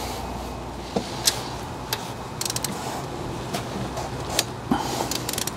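Hand ratchet and socket extension clinking against the engine as they are fitted onto a 10 mm bolt, with two short runs of quick ratchet clicks, one near the middle and one near the end.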